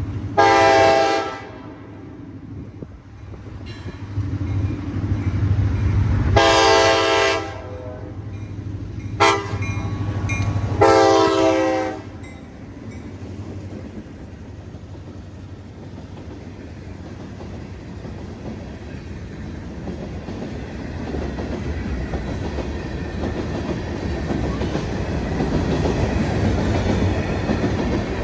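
Diesel locomotive horn sounding the grade-crossing signal: long, long, short, long blasts. A train's low rumble and rolling wheels then grow steadily louder as it approaches and passes.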